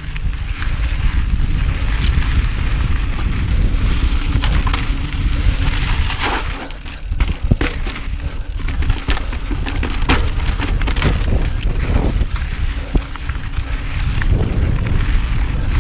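Mountain bike rolling over dry dirt singletrack: a steady low rumble of wind on the handlebar camera's microphone, with tyre noise and frequent clicks and rattles from the bike over rocks, thickest in the middle.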